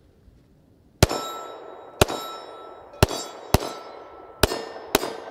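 Six shots from a Smith & Wesson M&P Shield 9mm pistol, each followed by the ring of a hit steel target. The shots come about a second apart, with some pairs closer together.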